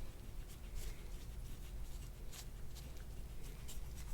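Faint, scattered rustling and brushing of hands working over the patient's back and clothing, a soft stroke every half second or so, over a low steady hum.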